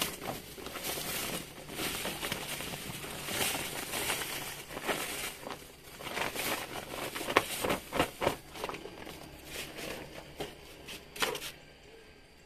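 Sand poured from a plastic sack into a plastic pot: a grainy hiss with crinkling of the sack and sharp crackles, in uneven bursts. It stops shortly before the end.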